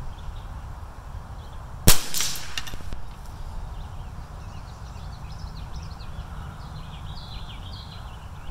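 A single .22 LR rifle shot from a Bear Creek Arsenal 201 firing CCI ammunition about two seconds in: one sharp crack with a short tail after it. A steady low rumble and faint high chirps run underneath.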